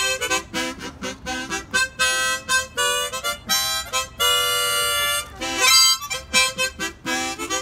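Harmonica playing a quick tune of short, choppy notes and chords, with one longer held chord a little past the middle.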